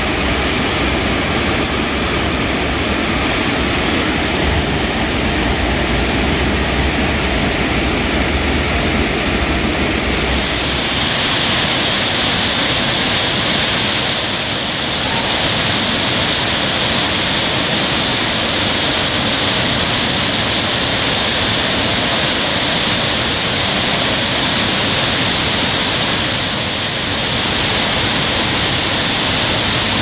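Whitewater pouring over The Sinks waterfall on the Little River: a loud, steady rush of churning water. About ten seconds in, the deep rumble drops away and the rush turns brighter and more hissing.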